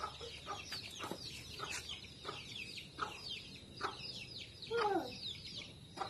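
Chicken-like fowl calls: clucking among many short, high, falling chirps, with a longer falling call about five seconds in.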